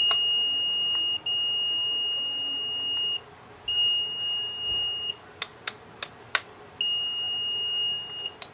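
Greenlee DM-210A (Brymen 252S) digital multimeter's built-in beeper sounding its beep-jack input warning while the display flashes InEr: a steady high-pitched beep in four long pulses with short gaps. Between the third and fourth pulses come four sharp clicks.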